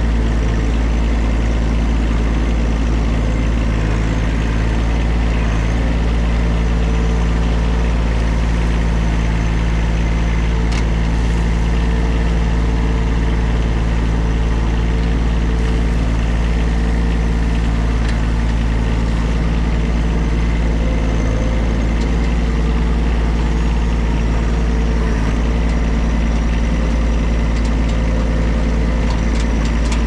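John Deere 1023E compact tractor's three-cylinder diesel engine running steadily, loud and even throughout.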